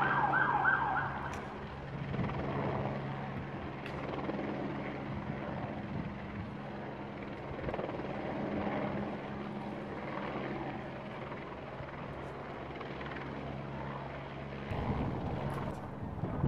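A wailing siren fades out about a second in, leaving the steady low drone of a helicopter overhead under general street noise. The drone drops away near the end.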